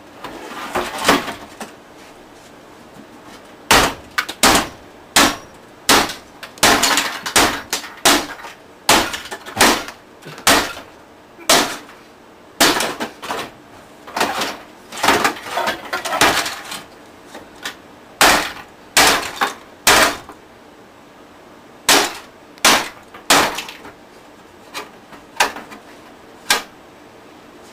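Claw hammer striking and smashing a junk stereo: a long run of hard, irregular blows, about one a second, some coming in quick clusters with crunching between them. The blows stop shortly before the end.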